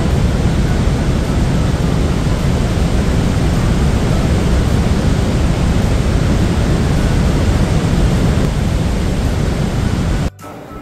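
Loud, steady roar of Niagara's Horseshoe Falls pouring down at close range: a constant rush of water noise, heaviest in the low rumble. It cuts off suddenly near the end.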